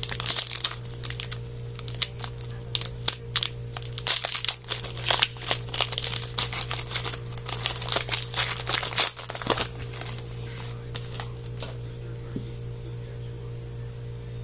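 Plastic foil wrapper of a trading card pack crinkling and being torn open, a dense run of crackles for about ten seconds that thins out into lighter handling.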